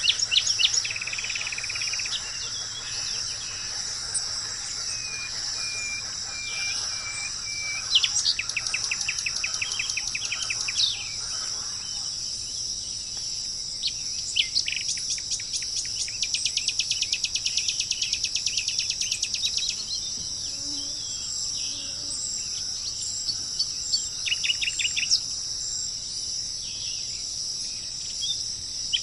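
Birds singing in rapid trills and series of short notes over a steady, high-pitched chorus of insects.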